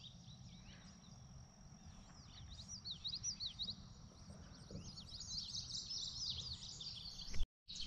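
Songbirds chirping and singing in quick repeated phrases over a steady high insect drone, with a low rumble underneath; the bird calls are busiest a little past the middle.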